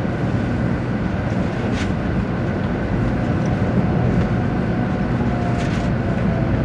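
Interior running noise of a 500-series Shinkansen heard from the passenger cabin: a steady low rumble with a faint whine and a couple of brief clicks.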